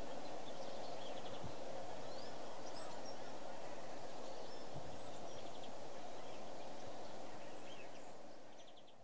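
Outdoor backyard ambience: a steady low background noise with faint, scattered small-bird chirps and short trills, fading out near the end.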